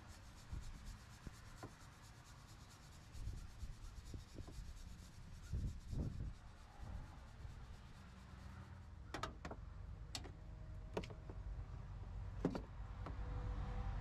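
Hand wire brush scrubbing a metal bracket and cable connection to clean it for a good ground, followed by several sharp metallic clicks and clinks of tools and parts.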